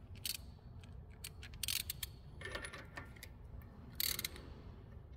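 Socket ratchet clicking in several short bursts as a spark plug is run into a Lycoming O-540 cylinder head's freshly Helicoil-repaired plug threads, over a low steady hum.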